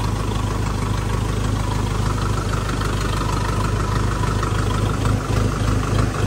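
Tractor engine running steadily with a deep, even hum.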